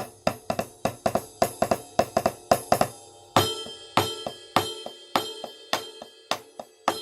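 Yamaha DTX900 electronic drum kit played in a drum beat: quick snare, bass drum and hi-hat strokes, about three or four a second. A cymbal crash comes in about three seconds in and rings on under the following hits.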